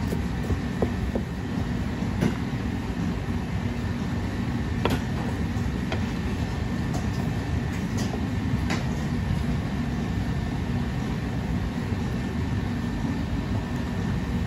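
A steady low mechanical rumble, the loudest sound throughout. Scattered sharp knife taps and scrapes on a plastic cutting board come over it as the last onion is chopped and the minced onion is gathered and scooped into a plastic tub.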